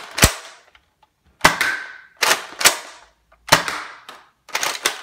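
Nerf Modulus Tri Strike foam-dart blaster being fired repeatedly: a string of sharp clacks, several in a row about a second or less apart.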